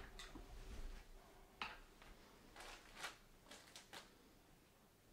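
Near silence with a few faint, scattered clicks and taps, mostly in the first four seconds.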